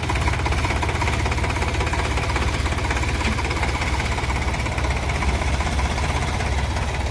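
An engine running steadily with a low, fast, even chugging rhythm.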